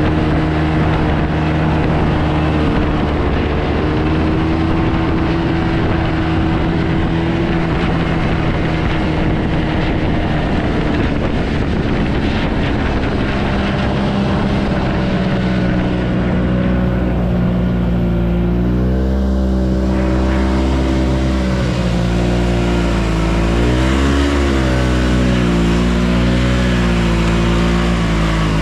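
Yamaha Bravo snowmobile's two-stroke engine running under way, holding a steady pitch at first; about two-thirds of the way through, its pitch starts rising and falling repeatedly as the throttle is eased and opened.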